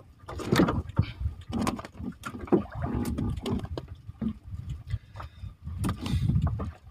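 Irregular knocks, taps and scrapes on a small wooden fishing boat as a handline is worked over the side, with a low rumble underneath.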